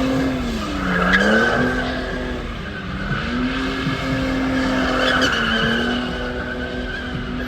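A car drifting: the engine is held high in the revs, with a pitch dip about a second in and then a steady note, while the tyres squeal continuously as they slide.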